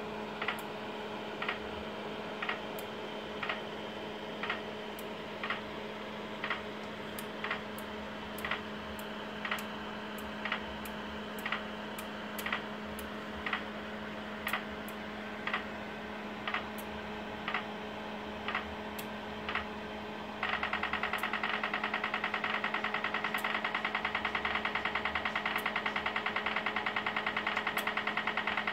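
Audible pedestrian signal (acoustic signal generator for blind people) ticking slowly, about once a second, which is the wait signal while the crossing is red. About 20 seconds in it switches suddenly to rapid ticking, the walk signal when the pedestrian light turns green. A steady electrical hum runs underneath.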